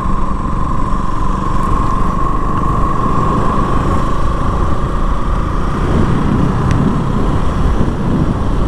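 KTM Duke motorcycle running at a steady cruise with wind noise, heard from the bike-mounted camera; a steady high whine edges slightly up in pitch.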